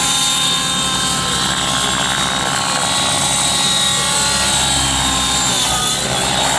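Nitro-fuelled radio-controlled model helicopter in flight: its glow engine and rotor make a steady, loud whine, with the pitch dipping and rising again near the end as it manoeuvres.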